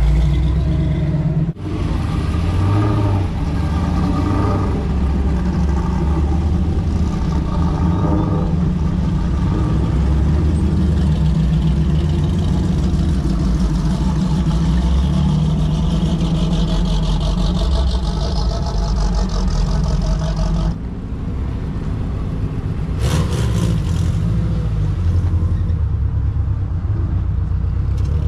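Car engines running at low revs, with the sound breaking off and changing abruptly twice, and a short sharp burst of noise about two-thirds of the way through.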